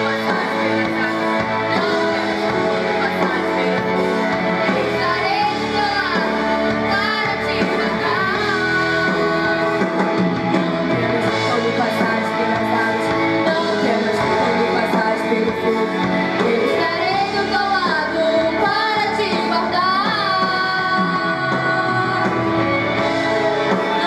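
Two women singing a gospel worship song into microphones over steady instrumental accompaniment, their voices gliding between held notes.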